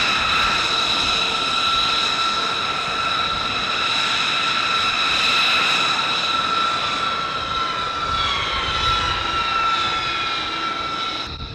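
Jet engines running with a steady high turbine whine. A second whine glides down in pitch in the last few seconds, and the high whine drops away just before the end.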